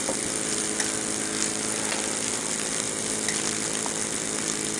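Lutz Hielscher miniature live steam engine running steadily, a continuous hiss of steam with a steady hum from the engine and its belt-driven dynamo.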